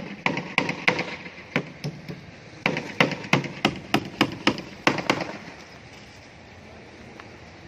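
Hammer driving nails into wooden formwork boards: irregular sharp blows, a short pause about two seconds in, then a steady run of about three blows a second that stops a little after five seconds.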